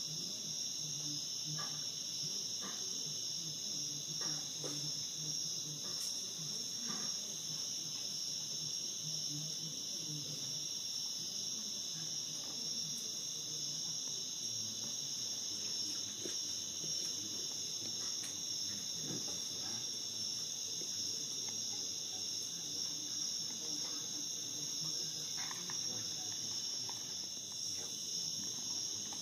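Steady chorus of night-singing insects: a continuous high trill at two pitches that never breaks.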